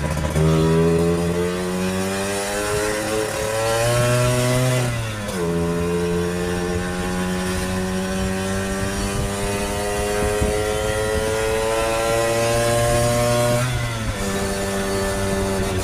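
1964 Lambretta Series 3 scooter's single-cylinder two-stroke engine under way, its note climbing with the revs, dropping sharply at gear changes about five seconds in and again near the end, then climbing once more.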